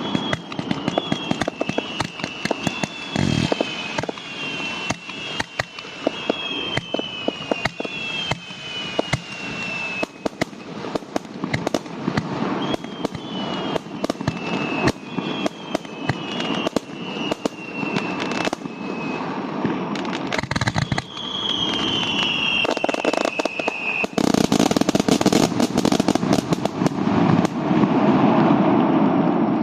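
Fireworks going off: a rapid stream of sharp crackling bangs with repeated whistles falling in pitch, and a couple of deep booms. Near the end it builds into a louder, dense barrage of crackles.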